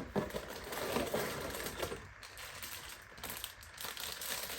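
Sealed plastic bags of Lego pieces being handled, the small plastic bricks clicking and rattling inside the bags with some crinkling of plastic. The clicking is busiest in the first two seconds and quieter after.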